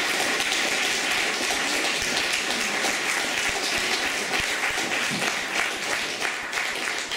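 Audience applauding steadily, with a roomful of hands clapping at once; near the end the clapping thins and single claps begin to stand out.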